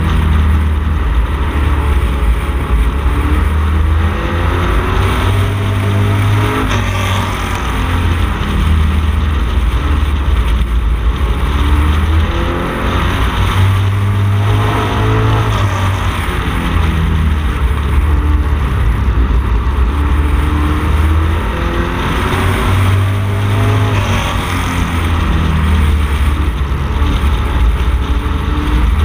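Street stock Camaro race car engine heard from inside the car at racing speed. Its pitch rises and falls every few seconds as the driver accelerates down the straights and lifts for the turns.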